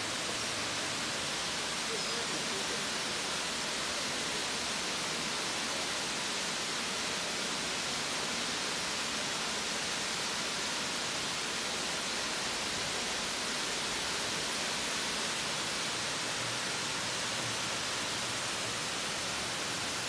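Waterfall: a steady, unbroken hiss of falling water.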